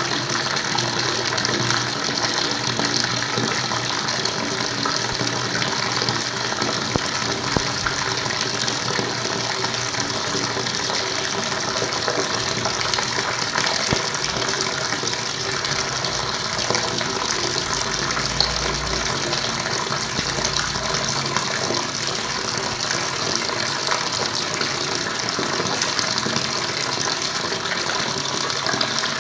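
Flowing water running steadily, an even rushing and splashing that doesn't change.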